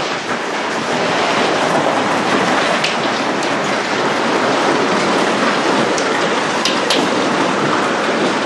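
Loud, steady noise of a storm's rain and wind beating on the building, with a few sharp ticks of impacts scattered through it.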